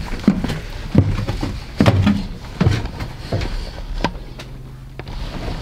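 Footsteps going down wooden stairs: a run of heavy, uneven steps roughly every half second to a second.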